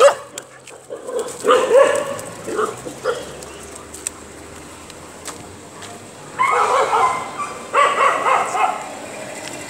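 Stray dogs barking in short bursts: one cluster about a second and a half in, and another from about six and a half seconds in.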